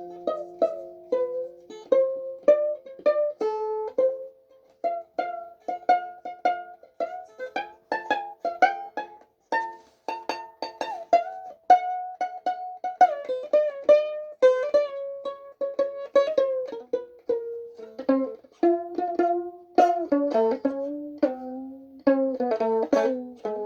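Violin strings plucked pizzicato, picking out a melody one note at a time, about two or three notes a second, each note starting sharply and dying away; the tune moves into lower notes near the end.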